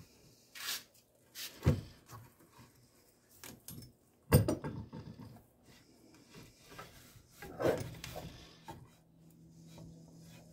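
Handling noise: a few scattered knocks and bumps as a replica championship belt is shifted and slid into place under a C-clamped 2x4, the loudest thump about four seconds in.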